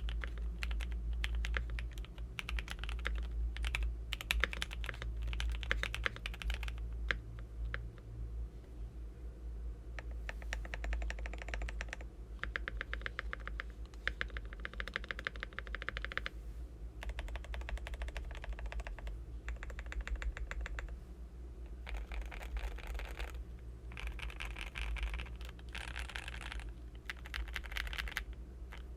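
Typing on a Tofu65 mechanical keyboard with polycarbonate plate, Black Cherry Pie linear switches (Cherry MX Black top housing, NK Cream stem, Alpaca bottom, 62 g spring) and ePBT keycaps. About ten seconds in, the typing gives way to the stabilized long keys being pressed rapidly over and over, in separate bursts with short pauses between them. A steady low hum sits underneath.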